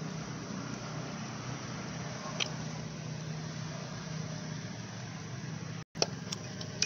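A steady low, engine-like hum of a motor running in the background, with a single sharp metal tool click about two and a half seconds in and a few more near the end as a tool works at the connecting rod inside an open small-engine crankcase.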